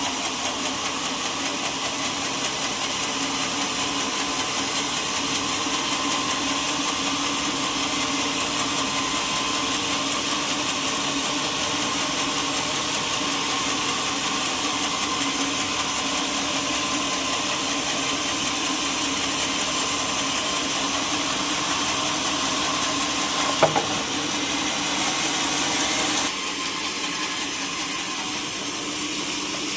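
Sawmill machinery running steadily, with a sharp knock about 23 seconds in and a change in tone a few seconds later.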